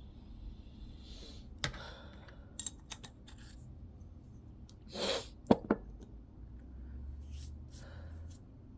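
A person's breathy sniffs and inhales during a pepper-induced sneeze build-up. About five seconds in there is a short burst of breath, followed by two sharp clicks, the loudest sounds here.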